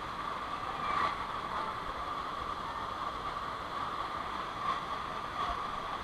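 Steady rushing of water from a waterfall.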